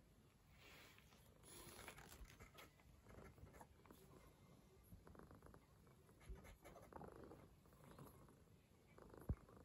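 Faint scratching of a grooming brush stroking through a cat's fur, with soft purring from the contented calico cat. A single soft thump near the end.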